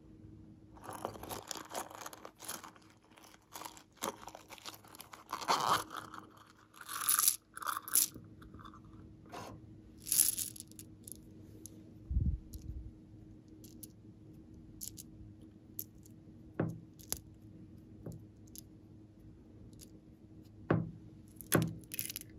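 Close handling sounds, no speech: clustered crunchy crackles and clicks through the first ten seconds as a silicone pop-it toy and small plastic beads are handled over a tray of slime. Then a dull thump about twelve seconds in and a few scattered light taps as the beads are set down.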